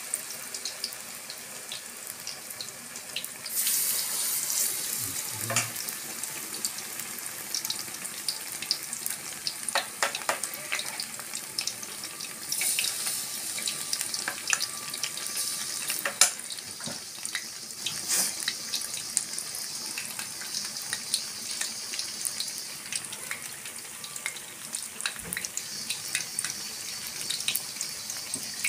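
Battered tempe deep-frying in a wok of hot oil: a steady high sizzle full of small pops and crackles, swelling louder a few times.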